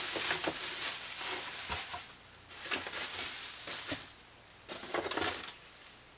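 Bubble wrap and plastic bags crinkling and rustling as a hand rummages through a packed box of resin kit parts, in three bouts with a few sharp clicks, dying down near the end.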